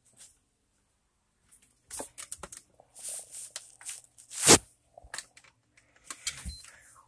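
Handling and rustling noises: a scatter of crackles and clicks, with one sharp knock about four and a half seconds in, the loudest sound.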